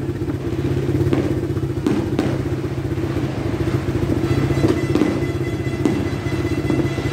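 A motorcycle engine idling steadily with a fast, even low putter, with several sharp pops scattered over it.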